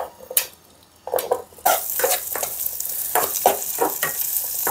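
Diced calabresa sausage knocking into a hot oiled pan, then sizzling steadily as it starts to fry from about a second and a half in. A utensil clicks and scrapes against the pan as the pieces are stirred.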